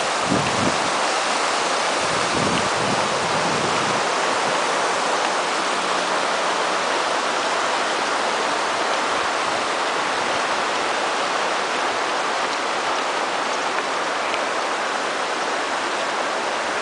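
Shallow river running fast over rocks: a steady rush of water. A few low thumps come in the first three seconds.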